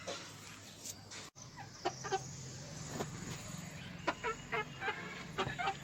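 Desi chickens clucking: a series of short calls that come more often in the second half.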